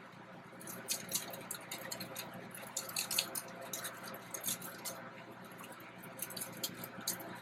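Seasoning rub being shaken from its shaker onto frozen crinkle-cut fries in a foil-lined air fryer basket: a run of light, irregular ticks and rattles starting about a second in.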